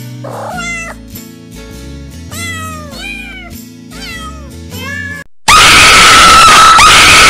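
A cat meowing several times over soft background music. About five seconds in it cuts abruptly to a woman's sudden, extremely loud, distorted scream, a jump-scare screamer.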